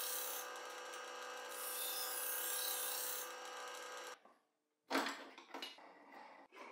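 Kitchen knife in a holder jig being ground against a spinning sandpaper-covered wheel driven by a homemade plywood lathe: a steady motor hum under a scraping hiss that swells twice as the blade is passed along the wheel. The machine sound cuts off suddenly about four seconds in, followed by a few light knocks and clicks of handling the wheel.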